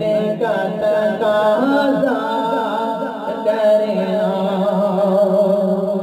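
Islamic a cappella vocal background music: a solo voice chants an ornamented, wavering melody over a steady held low drone, with no instruments.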